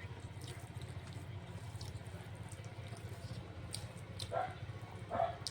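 Eating noises: a few faint clicks and two short, louder wet mouth sounds near the end, over a steady low hum.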